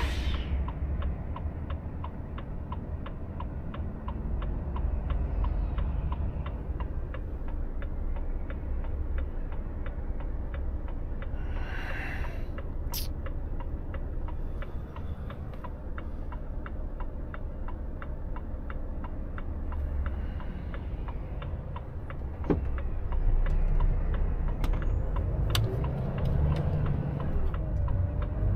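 Volvo FH truck's turn indicator clicking in an even, regular rhythm over the low rumble of the diesel engine in the cab. The clicking stops about halfway through, and the engine gets louder near the end as the truck pulls away.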